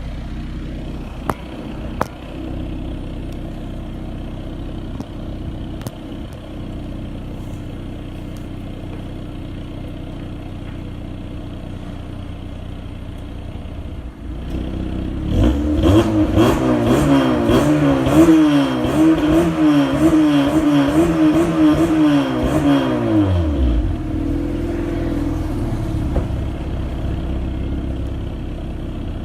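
Car exhaust fitted with a Modulo aftermarket muffler, idling steadily, with two sharp clicks near the start. About halfway through, the throttle is blipped repeatedly for about eight seconds, the revs rising and falling several times, then the engine drops back to idle.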